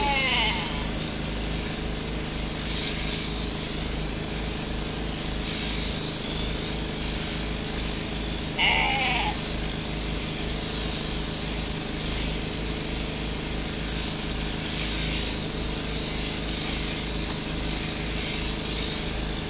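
Steady hum of a sheep-shearing machine running as a sheep is sheared, with a sheep bleating briefly at the start and again about eight seconds in.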